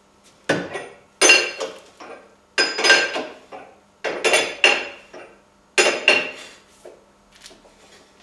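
Sharp metallic clanks from a steel chain-and-lever body-pulling rig being worked by hand. There are about ten, often in quick pairs, each ringing briefly, and the loudest comes about a second in.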